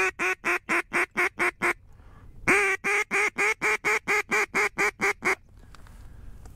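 Duck call blown in a string of loud, even quacks, about four a second, to draw in ducks. A run of about eight quacks, a short pause, then a longer opening note about two and a half seconds in followed by a dozen more quacks.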